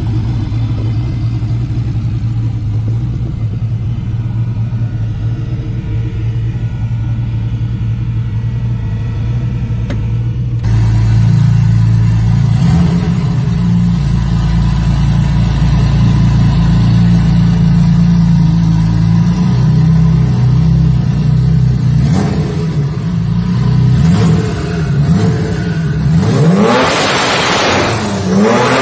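A big-single-turbo Mustang engine idles steadily. About a third of the way in, a twin-turbo race car engine takes over with a louder, heavier idle. It gives a couple of sharp cracks, then revs up and down several times near the end.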